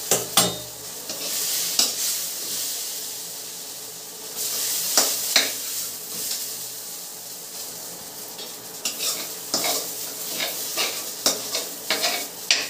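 A metal spatula scraping cooked stuffing out of a hot kadhai into a steel bowl: repeated scrapes and clinks of metal on the pans over a steady sizzle from the hot pan.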